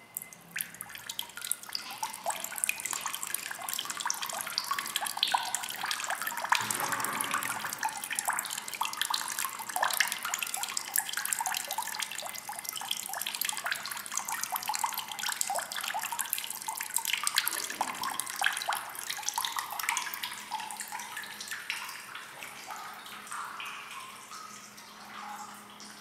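Water poured from a hand-held plastic pitcher splashing and trickling into a shallow stone fountain basin, a steady crackling splash that tapers off over the last few seconds.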